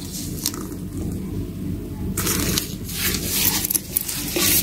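Nylon shopper bag being handled and pulled open by hand, its fabric rustling and crinkling, louder from about two seconds in, with a few small clicks.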